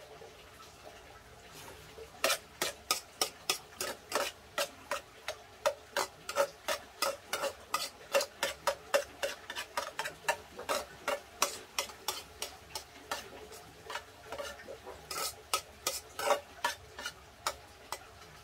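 A spoon scraping and clinking against a pot in quick, even strokes, about three a second. The strokes start about two seconds in and stop near the end.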